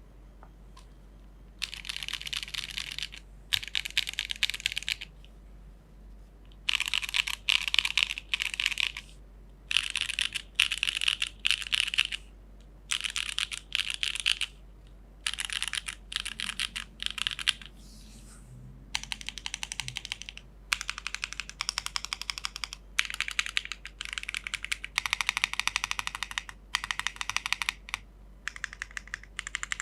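Geonworks F1-8X V2 mechanical keyboard with a polypropylene plate, SWK Dragon Ghost switches and Keykobo Tai Ji keycaps being typed on fast. Runs of rapid keystrokes a second or two long come between short pauses, the first starting about two seconds in.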